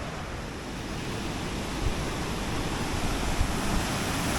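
Rjoandfossen waterfall rushing, a steady roar that swells louder from about a second in. A few brief low bumps of wind on the microphone.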